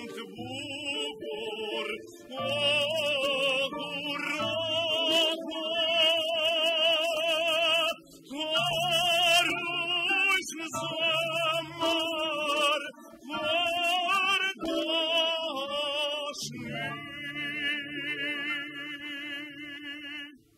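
A high female voice singing long, wide-vibrato notes over a steady lower accompaniment, with a short break about eight seconds in; the last long held note cuts off abruptly at the end.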